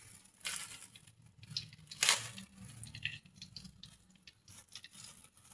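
Intermittent handling noises of food and tableware: crinkling and rustling with scattered light clicks, and a louder scrape or rustle about two seconds in.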